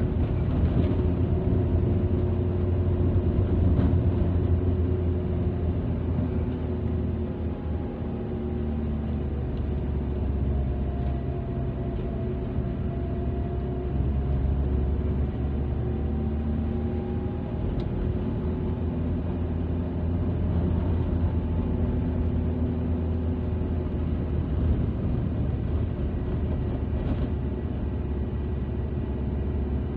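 Car engine and road rumble heard from inside the cabin while driving: a steady low drone whose engine note sinks slowly partway through and then rises again.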